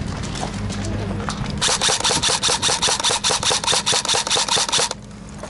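Airsoft electric gun firing one long full-auto burst of about three seconds, a rapid rattle of roughly nine shots a second over the whir of the gearbox motor. It starts about a second and a half in and cuts off suddenly near the end.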